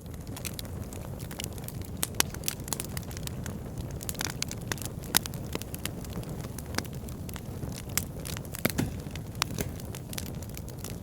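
Wood burning in a fireplace: a steady low rumble of flames with frequent, irregular sharp crackles and pops from the burning logs.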